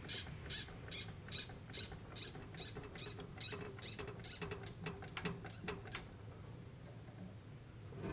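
Floor jack being pumped to lift a 4-link rear axle through its suspension travel: a rhythmic squeaky click with each stroke, about two to three a second, stopping about six seconds in.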